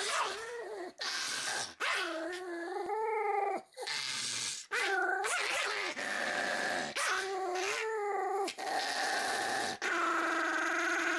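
Pomeranian growling: a run of long, wavering growls, one after another with short breaks.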